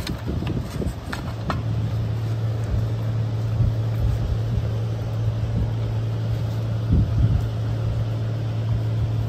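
A steady low machine hum, with irregular rubbing and handling noises from a rag wiping oil out of a car's oil pan.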